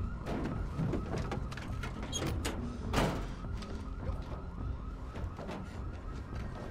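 A siren wails steadily in the background over a low rumble, with scattered clicks and knocks and one loud bang about three seconds in.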